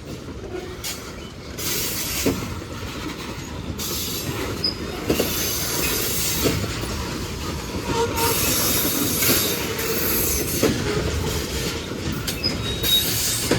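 Cars of a freight train rolling past, with irregular wheel knocks and clacks over the rail joints, a hissing rush of wheel and rail noise, and a few brief wheel squeaks.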